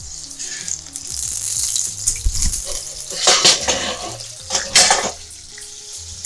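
Sizzling from a hot pan, with clatter of cookware and two louder surges of hiss about three and five seconds in. Faint background music underneath.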